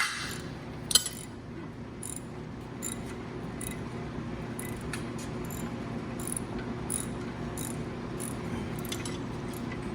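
Light metallic clinks of tools and parts being handled, with one sharper clank about a second in, over a steady low workshop hum.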